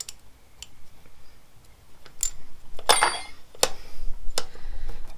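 Several separate sharp metallic clicks and clinks, spread irregularly, from metal tools and parts being handled and set down.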